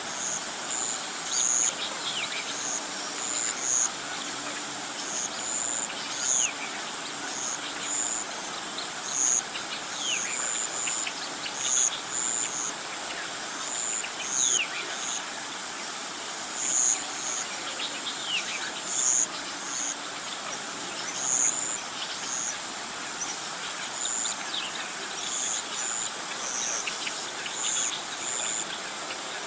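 Birds and insects calling: short high-pitched chirps repeat every second or two, with a few thin falling whistles, over a steady hiss.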